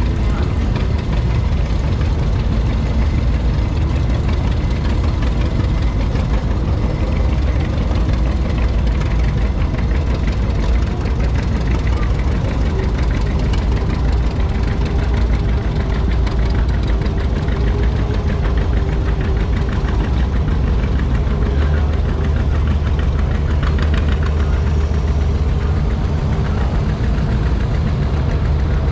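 Several vintage farm tractors, Farmall and John Deere, running at low speed as they drive past one after another. The engines make a steady, low rumble.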